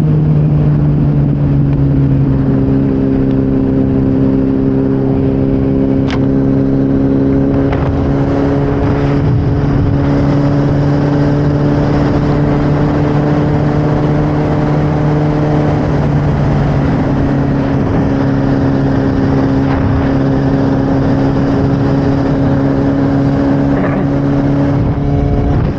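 Motorcycle engine running at a steady cruise under the rider, its note holding nearly constant pitch over a rushing noise, with only a slight shift in engine note about sixteen seconds in.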